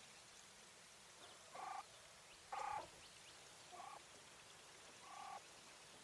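English White Coturnix quail hen calling: four short, soft calls about a second apart, the second one the loudest.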